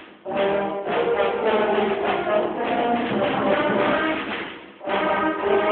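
Concert band playing with the brass to the fore. Twice the sound drops away briefly and the whole band comes back in together.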